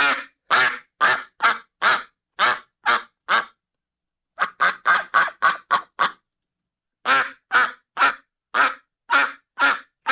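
Duck quacking in three runs of short, repeated quacks, each run about two to three seconds long with a pause of about a second between, the middle run quicker than the others.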